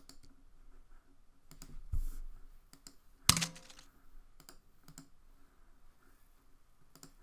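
Scattered computer mouse clicks and keyboard key presses, with a dull low thump about two seconds in and one louder click a little after three seconds.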